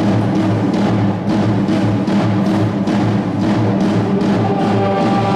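Junior high school concert band playing, with a steady drum beat over sustained low notes. Higher held notes from the winds come in near the end.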